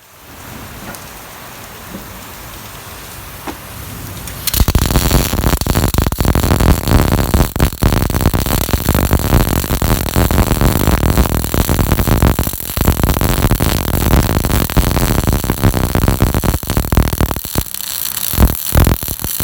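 MIG welder arc crackling and sputtering loudly from about four and a half seconds in, after a quieter steady hiss; the crackle breaks off briefly a few times near the end.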